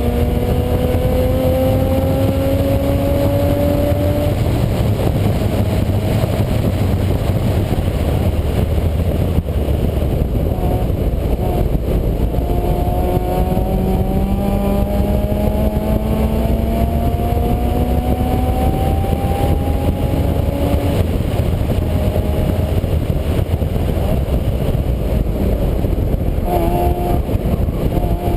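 A vehicle engine heard over a heavy, steady low rumble. Its tone climbs slowly twice as the vehicle accelerates, dropping away in between, and picks up again near the end.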